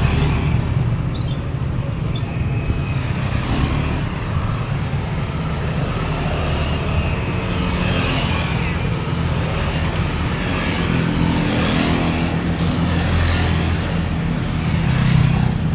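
Steady road traffic: engines rumbling and tyres hissing as cars and other vehicles pass one after another, with a few louder swells as vehicles go by near the end.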